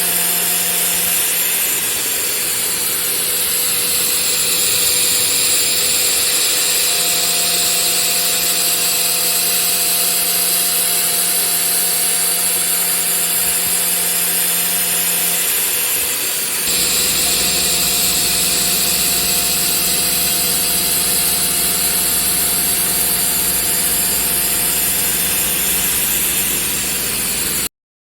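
ATC CNC router spindle milling stainless steel: a steady machine whine with a harsh, high cutting hiss. The sound changes abruptly about halfway through, with a deeper hum joining, and it cuts off suddenly near the end.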